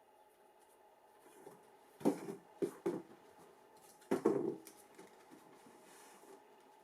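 Handling noise from a sneaker and its packaging: a thump about two seconds in, two short knocks right after, and another, longer thump about four seconds in.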